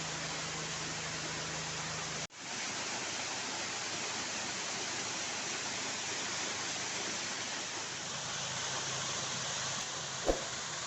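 Waterfall: a steady rush of falling water, cutting out for an instant about two seconds in and resuming, with a short knock near the end.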